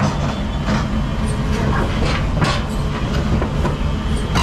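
Crawler excavator's diesel engine running steadily, with several sharp knocks and clanks of its steel tracks and undercarriage on the low-bed trailer's deck.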